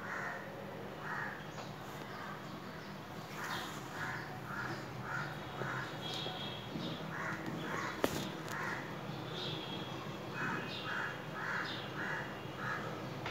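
A bird calling over and over in quick runs of four to six calls, with pauses between the runs, over a steady low hum. A single sharp click about eight seconds in.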